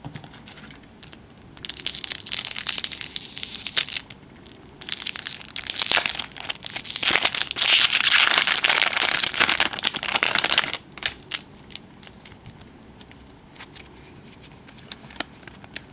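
Crinkly wrapper of a baseball card pack rustling and tearing as it is pulled open, in two bursts, loudest about seven to ten seconds in. Then only faint ticks as the stack of cards is handled.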